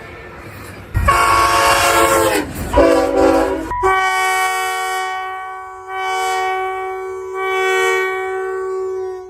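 Train horns blowing multi-note chords. A loud chord falls in pitch about a second in and a lower chord follows; after an abrupt cut a steady horn chord sounds in long swells.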